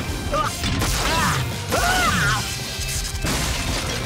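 Cartoon action sound effects over background music: several short swooping, pitch-bending zaps with crashing impacts.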